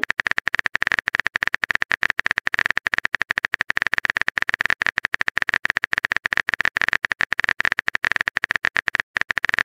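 Typing sound effect: a rapid run of keyboard clicks, many per second, with a short pause near the end.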